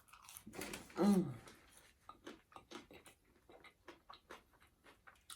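Close-up chewing of a crispy chicken sandwich: a run of soft, wet mouth clicks a few times a second, with a short appreciative moan falling in pitch about a second in.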